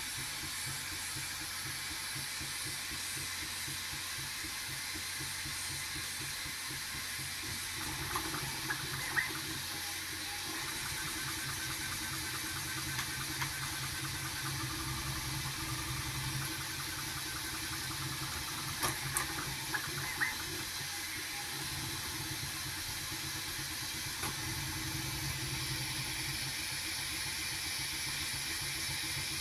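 Bambu Lab A1 mini 3D printer printing: a steady fan hiss and low hum, with the stepper motors whining in shifting tones as the print head moves. A few short clicks come about eight seconds in and again around nineteen seconds.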